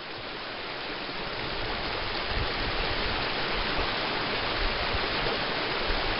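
Rocky woodland stream rushing and splashing over boulders and small cascades, a steady rush of water that fades up over the first two seconds or so.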